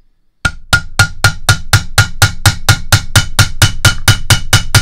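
Hammer tapping the end of an ash-wood dowel, starting about half a second in and going on in a steady rhythm of about four strikes a second. Each strike drives a lead slug down into the rifling of a pistol barrel for bore slugging.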